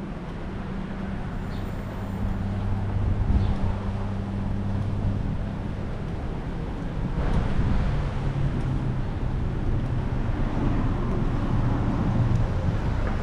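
City street traffic: a nearby vehicle engine's steady low hum under the noise of passing cars, the hum shifting in pitch about halfway through.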